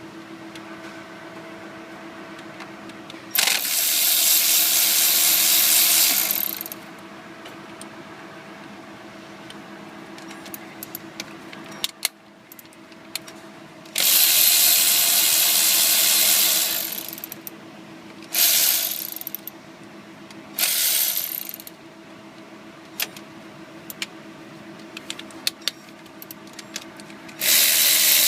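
A compressed-air tool running in several hissing bursts of one to three seconds, each starting suddenly and trailing off, with light metal clicks between them and a steady low hum underneath.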